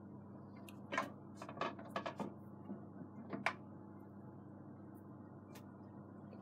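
Faint handling noises as a cloth-covered lid is worked on a black cooking pot: a few soft knocks and clicks, about a second in, around two seconds and again near three and a half seconds, over a faint steady hum.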